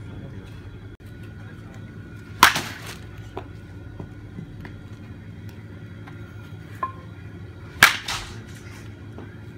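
Baseball bat striking pitched balls: two sharp cracks about five seconds apart, each followed a moment later by a fainter second knock.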